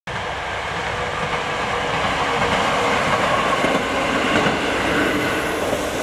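A Kyoto Tango Railway single-car diesel railcar running past on the line, its engine and wheels making a steady, loud rumble that swells slightly mid-way.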